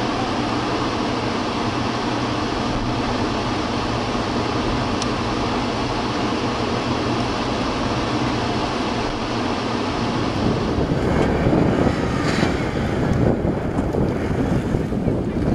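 Steady noise of a car on the move. In the last few seconds it turns into louder, gusty wind buffeting on the microphone.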